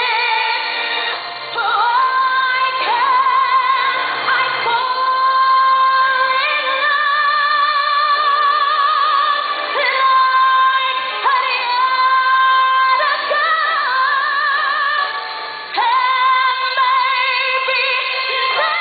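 A woman singing a ballad over backing music, belting long held notes with a wide vibrato. The sound is thin and dull, missing its highs.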